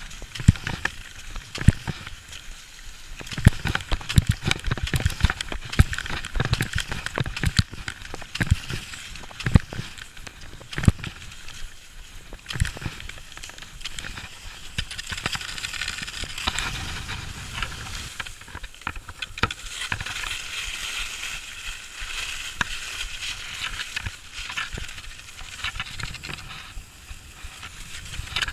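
Cross-country skis scraping and sliding over packed snow, with sharp irregular clicks and crunches as the poles are planted. From about the middle onward the clicks thin out and a steadier hiss of the skis gliding takes over.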